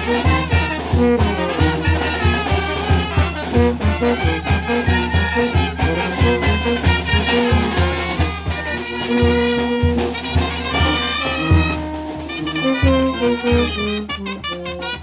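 Band playing a chilena, with brass instruments carrying the melody over a steady, pulsing bass beat.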